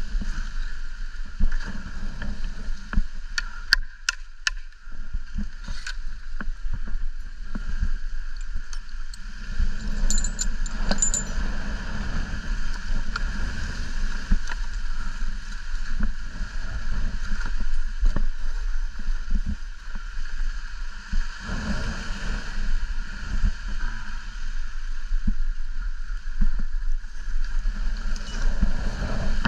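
Wind buffeting the microphone in gusts over a constant deep rumble, with palm fronds rustling close by. A few sharp clicks stand out about three to four seconds in and again about ten seconds in.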